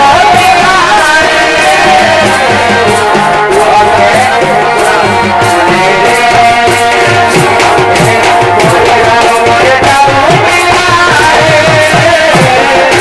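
Chhau dance music: a dhol drum beating a steady rhythm under a wavering melody line, loud and continuous.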